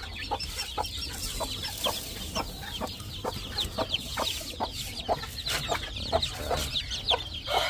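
Many chicks peeping in a steady stream of short, high, falling chirps, with a hen clucking among them.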